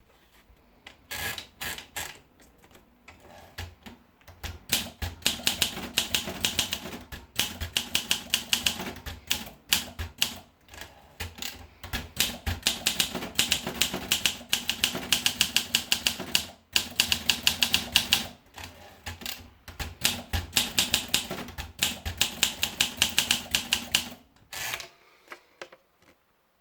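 Olympia SM2 manual portable typewriter being typed on: quick runs of sharp keystrokes striking, several runs broken by short pauses, stopping shortly before the end.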